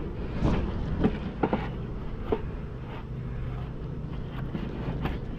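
A handful of short knocks and bumps in the first two and a half seconds, then a steady low hum under wind noise on the microphone.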